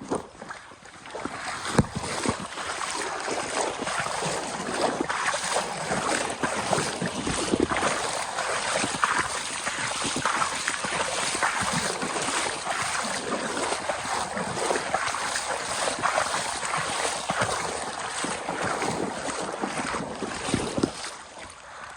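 Water splashing and churning close to the microphone, a continuous rough rushing that starts about a second in and dies away near the end.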